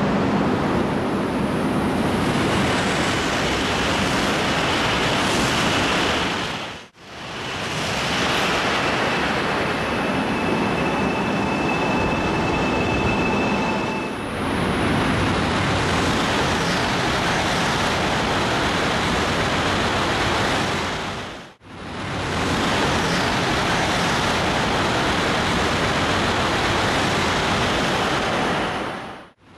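Shinkansen bullet trains passing at speed: a loud, steady rushing noise of air and wheels on rail, in three stretches cut apart by brief drops to silence about 7 and 21 seconds in. A faint high whine rides over the rush in the middle of the first long stretch.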